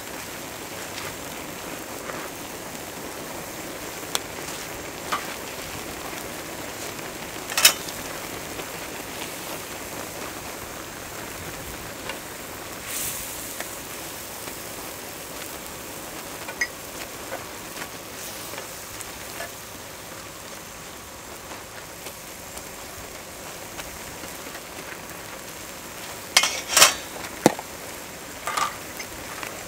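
Chicken-leg ramyeon broth boiling hard in a wide cauldron-lid pan (sotttukkeong), a steady bubbling hiss. A few sharp clicks and taps come through it, with metal chopsticks stirring the noodles apart in the pan, and a quick cluster of them near the end.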